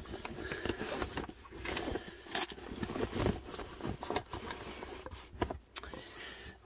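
Hand tools and the fabric of a soft tool bag being handled: scattered light metal clinks and clicks over rustling.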